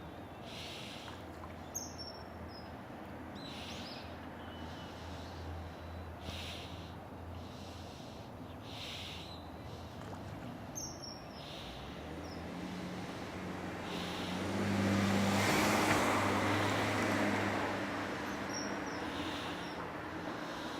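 Outdoor ambience with short bird calls repeating every second or two. A motor vehicle passes, building from about twelve seconds in, loudest a few seconds later, then fading.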